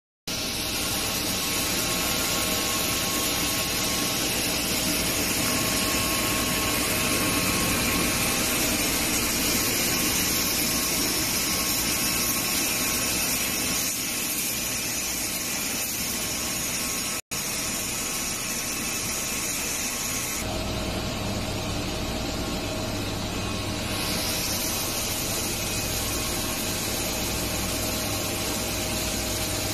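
Steady machine noise from a running parallel twin-screw extrusion and strand-pelletizing line, with a dense hiss and hum. It cuts out for an instant about 17 seconds in, and about 20 seconds in the hum deepens and a steady tone comes in.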